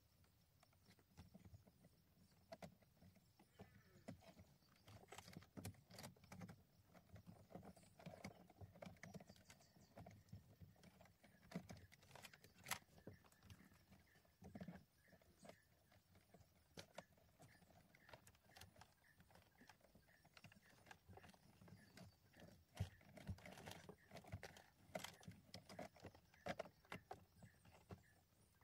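Faint, irregular clicks, taps and rustling of car-audio wiring being handled and pushed through a car's opened dashboard, with the odd louder knock against the plastic trim.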